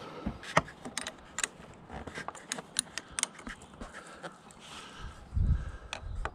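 Small metallic clicks and taps from fitting the nut onto the pivot pin of a motorcycle's front brake lever, about a dozen sharp ticks scattered irregularly. A brief low rumble about five seconds in is the loudest moment.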